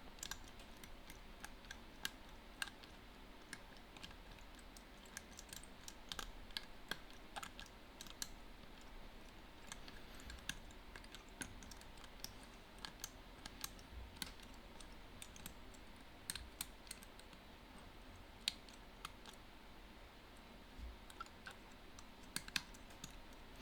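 Faint, irregular small clicks and ticks of a pick and tension wire working inside a Belfry Secure 5-lever padlock as its levers are felt and lifted one by one.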